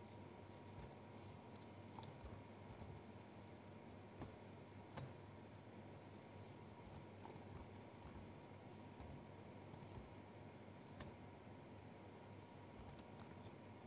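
Faint computer keyboard keystrokes: a few scattered, sharp clicks over near-silent room hiss.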